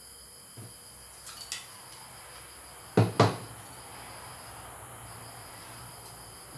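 Kitchen clatter off camera: a couple of light clicks, then two sharp knocks about a quarter second apart, a little after halfway through.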